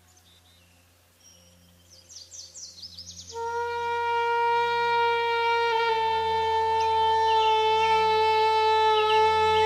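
Recorded Nordic folk music: a faint low drone, a few quick rising chirps about two seconds in, then a horn sounds one long, loud, steady note from about three seconds in, with small high chirps above it.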